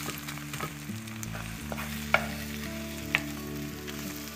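Eggs sizzling as they fry in a nonstick wok, stirred and broken into big pieces with a wooden spatula. Two sharp taps of the spatula on the pan come about two and three seconds in.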